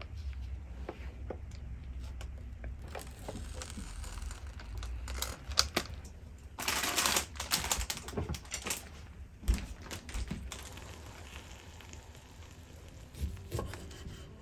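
Light clicks and clacks of a plastic electric hot sandwich maker being closed and latched, with a couple of sharper knocks and a short hiss about seven seconds in. Near the end, a kitchen knife taps on a wooden cutting board.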